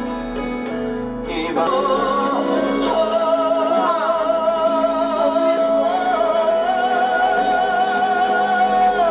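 Background song: a singer holds long notes with vibrato over instrumental accompaniment, one note sustained from about three seconds in to the end.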